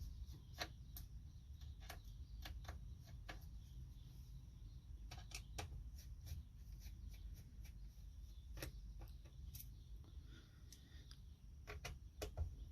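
Scattered small clicks and taps of hands and a screwdriver working on a laptop case, at an uneven pace, over a low steady hum.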